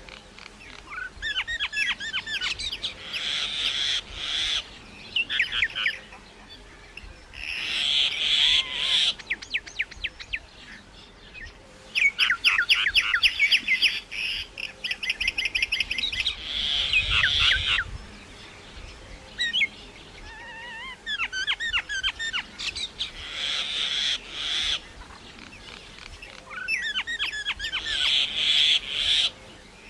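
Myna calling in repeated bouts of rapid chattering, clicks and short whistled notes, each bout lasting a few seconds with brief pauses between.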